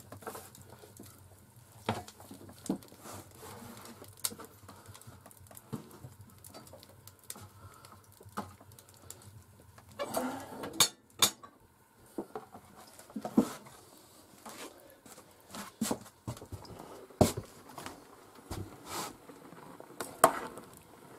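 Scattered knocks, clicks and crackles from a wood-burning stove being tended, with wood handled at the firebox, the loudest cluster about ten seconds in. Near the end a metal spoon clinks in a pot of potatoes.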